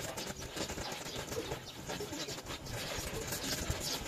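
Gas welding torch flame hissing steadily as it melts aluminium onto a steel bar.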